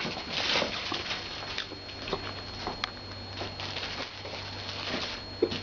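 Irregular rustling and soft handling noises from something being handled, with a sharp click a little under three seconds in.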